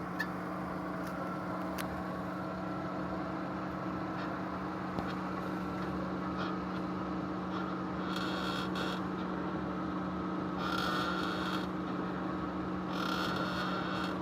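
Chevrolet Cruze front wheel creaking in three short bursts about eight, eleven and thirteen seconds in, as the steering wheel is turned. Under it runs a steady hum from the car.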